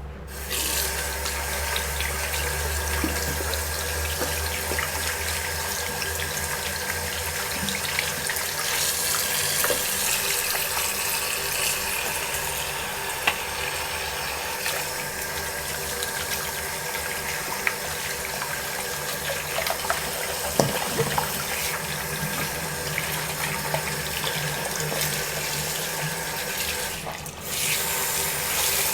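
A water tap running steadily into a sink while hands are washed, with small knocks and splashes now and then.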